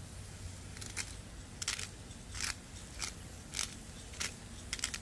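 Salt and pepper grinders being twisted by hand over a pan, giving a short gritty crunch with each turn, about eight turns spaced roughly half a second to a second apart.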